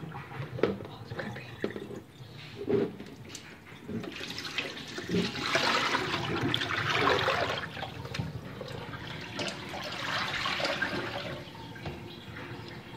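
Liquid pouring out of a plastic tub into a stainless-steel kitchen sink, splashing and gurgling in a long rush from about four seconds in until near the end. A few knocks of the tub against the sink come before it.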